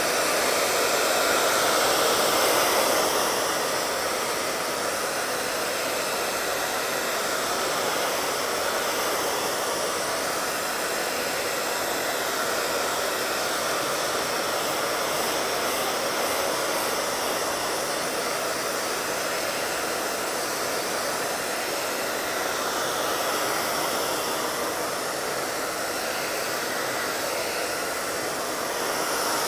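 Hand-held hair dryer blowing steadily, drying a fresh coat of matte varnish on a wooden box lid; slightly louder for the first few seconds.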